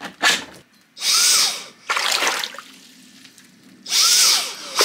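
Dyson cordless handheld vacuum's motor triggered in short bursts: each time it spins up with a high whine and a strong rush of air, then winds down within about half a second. Three bursts, the first about a second in, with another starting at the very end.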